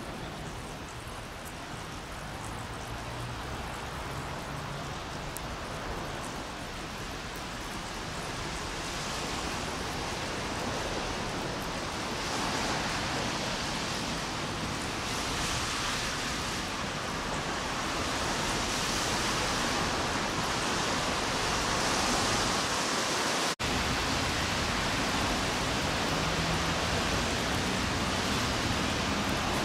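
Steady hiss of light rain mixed with a low hum of distant traffic, slowly growing louder, with a very brief dropout near the end.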